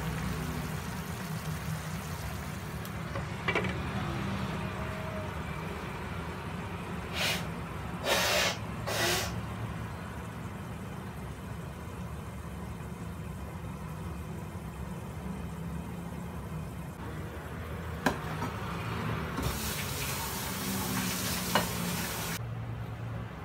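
Chicken pieces simmering in soy-sauce gravy in a frying pan, a steady sizzle over a low hum. A few brief louder bursts of noise come about seven to nine seconds in, a sharp click near eighteen seconds, and the sizzle grows louder for a few seconds near the end.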